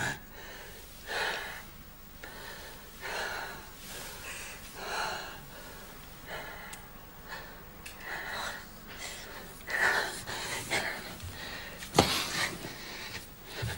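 A woman crying: shaky, gasping breaths and sobs every second or two. A sharp knock sounds near the end.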